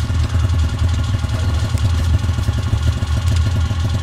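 An engine idling steadily, a loud, even low rumble.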